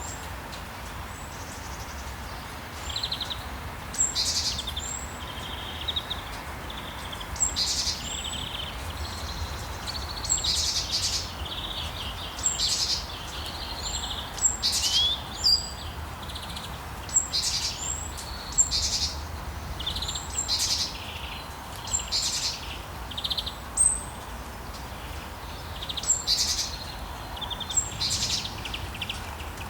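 Birds chirping, with many short calls following one another about every second over a steady low background noise.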